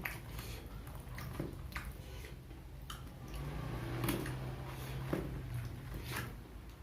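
Close-up mukbang chewing of fried snacks: wet mouth smacks and clicks every second or so, with a low hum in the middle.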